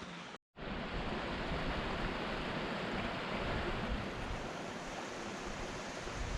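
Waterfall rushing steadily, a constant noise of fast-falling water heard close up. It starts abruptly after a split-second silent cut near the start.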